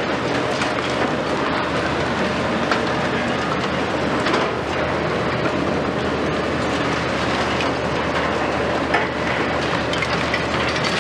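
Diesel engines of demolition excavators running steadily under a continuous crackle and clatter of concrete being crushed and debris falling as a high-reach excavator breaks down a building.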